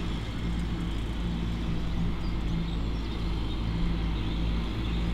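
A motor vehicle's engine running steadily, a low drone that swells and eases every second or so.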